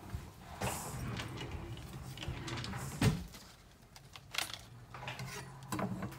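Kitchen handling noises: a steel knife and hands knocking and clicking on a wooden cutting board as a bunch of green onions is picked up, with a few short sharp clicks and one heavier thump about three seconds in.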